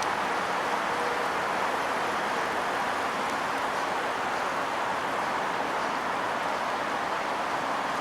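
Strong wind, a steady and unbroken rushing noise.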